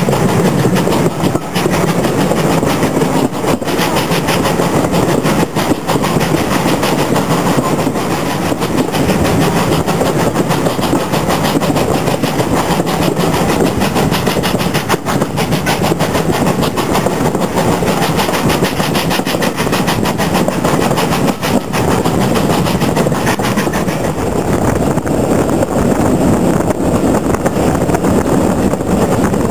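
Heritage railway train running on the track: a steady loud rumble with many small wheel clicks and knocks.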